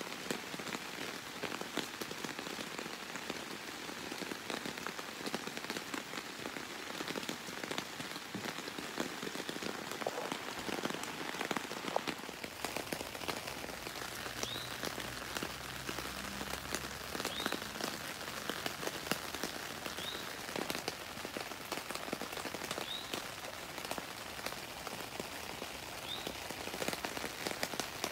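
Rain pattering on the tent fabric, a dense steady spatter of drops. In the second half a short high chirp repeats about every three seconds.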